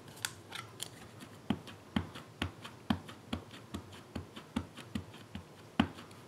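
Versamark ink pad tapped repeatedly onto a rubber stamp mounted on a clear acrylic block: light plastic taps, about two a second, inking the stamp.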